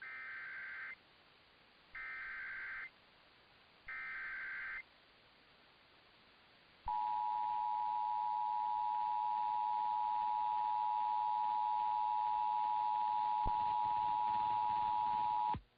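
Emergency Alert System activation tones: three one-second bursts of SAME digital header data, a second apart, then the EAS two-tone attention signal held steady for about nine seconds before cutting off sharply. They announce a National Weather Service severe thunderstorm warning.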